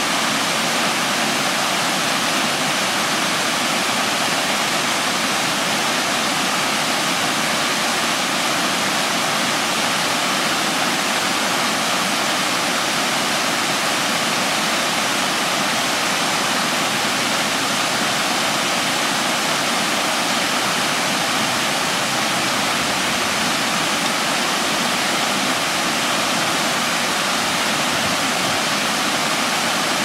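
Water from a stepped, tiered fountain cascading over its concentric ledges and splashing into the basin below: a loud, steady rush with no change.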